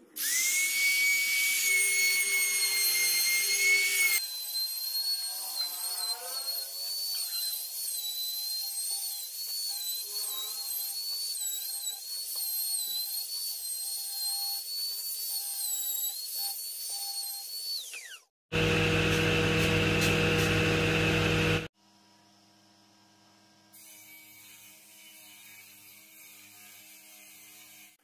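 Handheld trim router whining at full speed, then cutting along the edge of a pine board, its pitch dipping and wavering under load before it winds down about 18 seconds in. A different lower-pitched steady hum follows for about three seconds, then it goes quiet.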